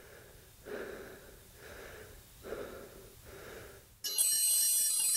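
Heavy, rhythmic breathing, one breath about every second, then music starts abruptly about four seconds in with bright, ringing high tones.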